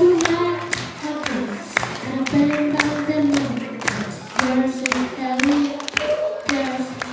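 A young singer singing held, sliding notes into a microphone over music with a steady beat of sharp hits, about two a second.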